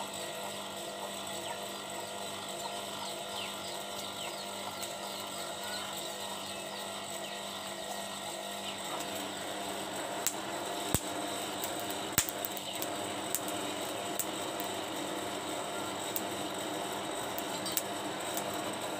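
Small electric blower running steadily, blowing air into a brick forge's fire as it is lit, a hum with a thin whine over it. Two sharp clicks come about eleven and twelve seconds in.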